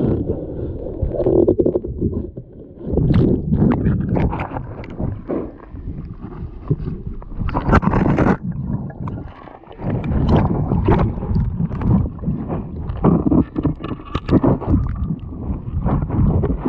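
Muffled, churning water noise picked up by a camera held underwater, with irregular louder surges and sharp bursts as the diver moves.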